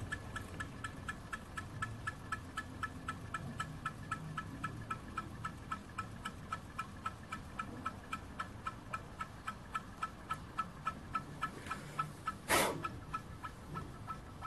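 A STARPOWER QX6 mini hot-air Stirling engine running steadily, its moving parts making an even, rapid ticking at about three to four ticks a second. Near the end there is one brief, loud burst of noise.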